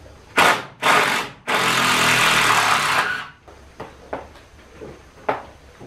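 A handheld power tool cutting through a screw whose head is stripped: two short blips, then a steady run of about a second and a half. A few light knocks follow near the end.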